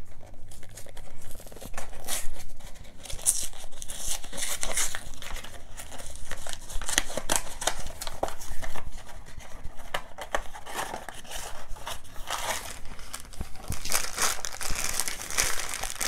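A small cardboard blind box being opened by hand and its shiny plastic inner bag crinkled and handled, with irregular rustling, tearing and crackling throughout.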